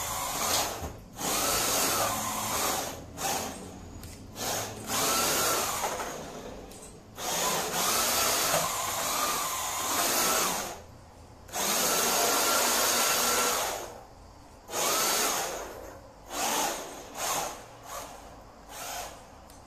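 SG 1603 1/16-scale 4WD RC drift car's electric motor and gears whining in repeated bursts of one to three seconds as the throttle is applied and released, the pitch rising at the start of each burst and then holding.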